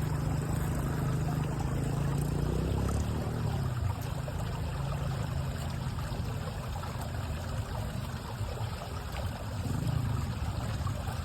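River water running steadily, with a deep low rumble underneath.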